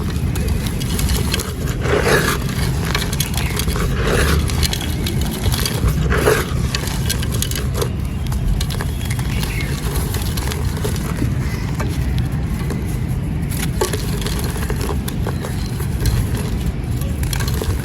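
Dry sand-cement or clay pot chunks being crumbled and crushed by hand, with gritty crackles and small clicks and rougher scraping crunches about two, four and six seconds in. A steady low rumble runs underneath.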